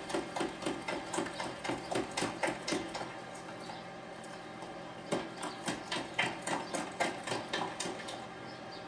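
Metal utensil beating Yorkshire pudding batter in a plastic jug, tapping against the sides about three times a second. It pauses for a couple of seconds midway and then starts again.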